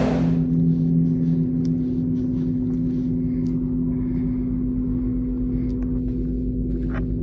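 Horror film score: a low, steady drone of several held tones over a rumble, ringing on from a heavy gong-like hit just before, with a few faint clicks over it.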